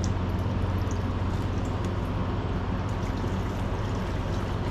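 Gasoline pouring and streaming through the opened top end of a Suzuki DR200 engine as it is flushed to wash out dirt, over a steady low hum.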